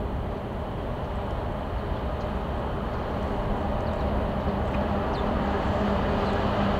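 Twin-section 2M62UM diesel locomotive approaching light along curving track, its diesel engines running with a steady hum that grows louder as it nears.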